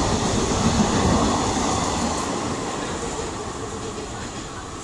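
Express train's passenger coaches running through the station at speed, with wheel-on-rail rumble and rattle. The sound fades steadily as the last coach passes and the train draws away.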